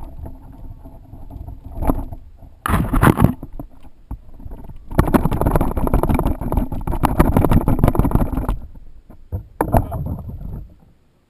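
Muffled water sloshing and churning around a Blade 350 QX3 quadcopter's camera after the drone has crashed into the spring, in irregular loud bursts. The sound cuts off suddenly near the end.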